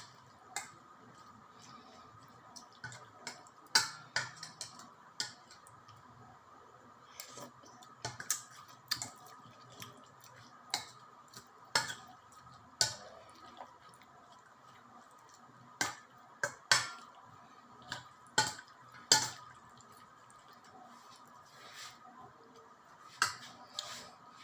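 Irregular sharp taps and clicks of utensils against dishes, roughly one a second and unevenly spaced, over a faint steady hum.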